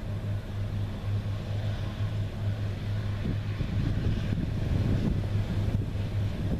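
New Holland CR9060 twin-rotor combine harvester running steadily at constant engine speed while harvesting. A low, rough rumble of wind on the microphone comes and goes, strongest in the second half.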